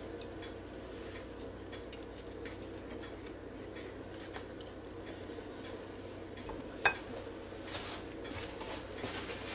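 Faint clinks and taps of dishes and utensils on a counter, with one sharper knock about seven seconds in.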